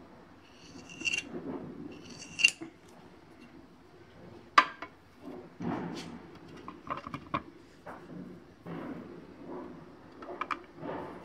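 Kitchen knife cutting a rolled sheet of dough into thin strips on a stone rolling board: irregular scrapes and sharp clicks of the blade against the board, the sharpest a little before halfway.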